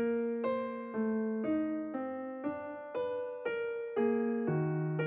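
Background music: a keyboard plays a gentle line of single notes, about two a second, each note fading before the next.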